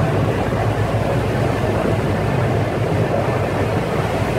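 Crew boat's engines running with a steady low drone, mixed with the rush of wind and sea.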